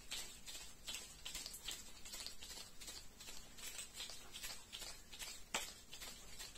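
Whole raw artichokes handled and rubbed close to the microphone, their stiff leaves making a faint, irregular crackling and ticking, with one sharper click about five and a half seconds in.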